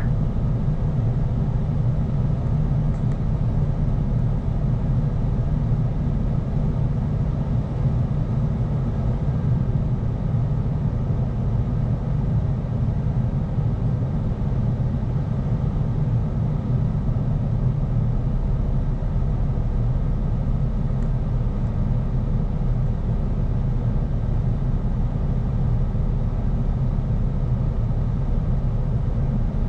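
Steady low rumble of a bus heard from inside its cabin.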